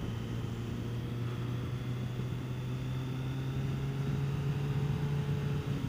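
Kawasaki Concours 14's inline-four engine running steadily while the motorcycle is ridden through curves, its note climbing slowly and easing off briefly near the end, heard from a helmet camera with some wind noise.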